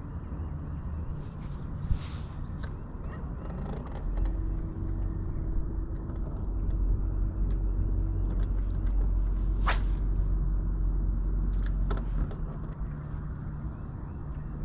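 Boat motor running with a steady low hum. About four seconds in it runs harder with a steady whine, and it eases back about twelve seconds in. A sharp click comes near ten seconds.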